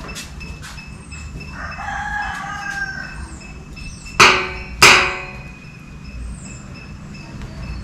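A rooster crows, then two loud, short cries come about two-thirds of a second apart. Faint high bird chirps recur throughout.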